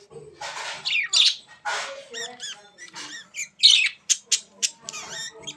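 A bird squawking harshly several times, then giving short whistled chirps and sharp clicking calls.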